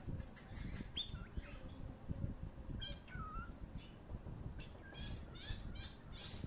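Small birds chirping in short, scattered calls over a low rumble.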